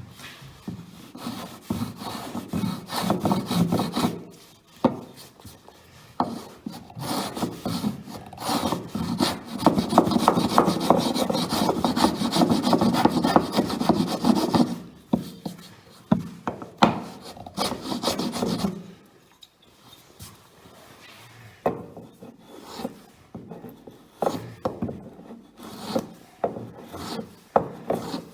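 Plane shaving an oak patch in a worktop down toward flush with the surrounding surface: quick repeated scraping strokes of the blade on the wood. The strokes come in long runs, then grow lighter and sparser for the last third.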